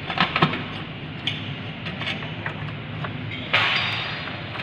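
Light metallic clicks and clinks as the clutch cable and its mounting bolt are worked back into place by hand on a Hyundai Santro Xing. A short, louder scraping rasp comes about three and a half seconds in.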